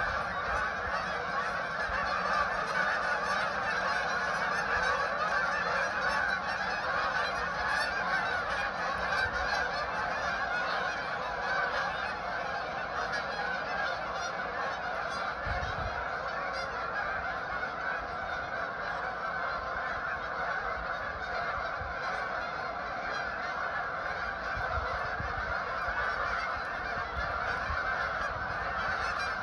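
A large flock of wild geese calling continuously as they fly overhead, a dense unbroken chorus of many overlapping calls.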